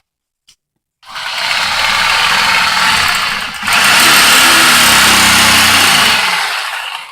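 Electric reciprocating saw (Harbor Freight Chicago Electric, rotating-handle model) running at speed in two bursts, starting about a second in, with a short break, and the second burst louder, as its blade cuts into a pumpkin.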